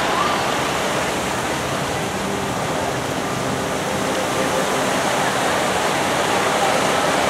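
Steady rush of a large fountain's water jets splashing into their pool.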